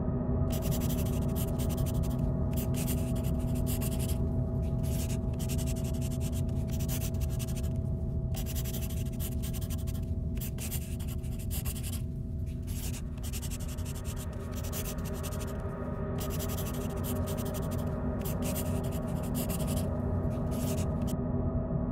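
Pen scratching on paper in runs of strokes with short pauses, over a steady low drone.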